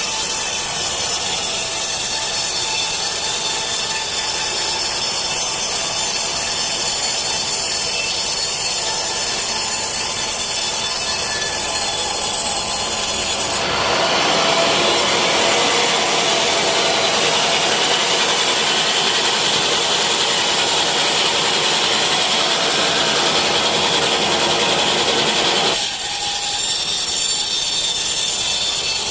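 Sawmill saw cutting teak wood, a steady, loud sawing noise. The tone of the cut changes abruptly about fourteen seconds in and again near twenty-six seconds.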